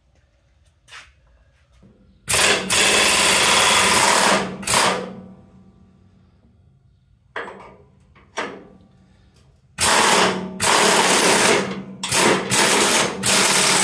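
Impact wrench hammering on a nut on a truck's rear suspension: one long burst about two seconds in, then three short bursts close together near the end.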